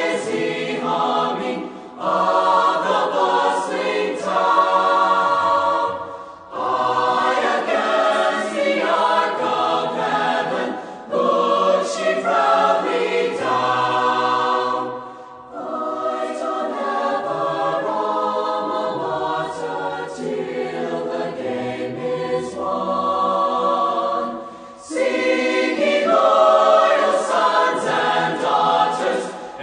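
Background music with a choir singing sustained phrases, with short breaks between phrases every few seconds.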